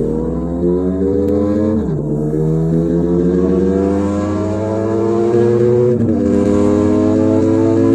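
Motorcycle engine accelerating hard through the gears, its pitch climbing steadily and dropping sharply at an upshift about two seconds in and again about six seconds in.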